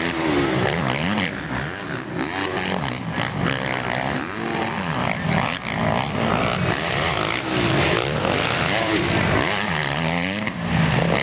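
Several motocross bikes racing round the track, their engines revving up and down in rising and falling whines as the riders accelerate and back off, one passing close at the start.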